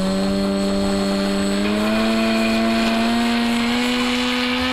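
RC model plane's electric motor and propeller running at power for takeoff: a steady drone that slowly rises in pitch as it speeds up.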